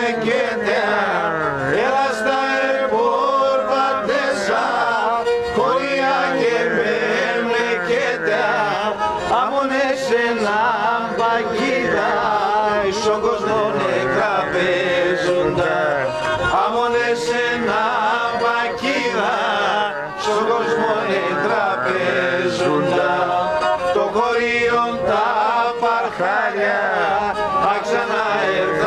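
Pontic lyra (kemençe) bowed in a continuous folk melody with wavering, ornamented notes, with men's voices singing or chanting along.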